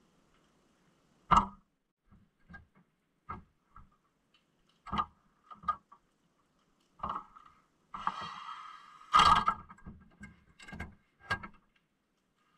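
Irregular knocks and thuds carried through an underwater camera rig as a broadnose sevengill shark bumps against its bait arm, with a scraping rasp about eight seconds in. The loudest knocks come about a second in and about nine seconds in.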